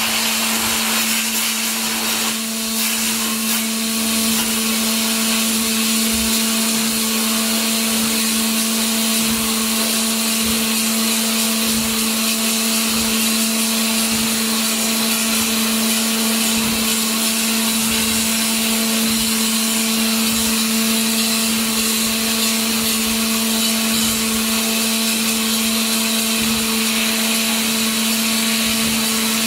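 WATERJET WF 1630 CNC water jet cutter running, its high-pressure jet giving a loud steady hiss with a steady hum underneath.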